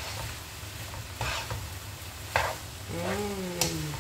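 Plastic spatula stirring and scraping fried noodles in a non-stick wok over a steady low sizzle, with two sharper scrape strokes. Near the end comes a short hummed note that falls slightly.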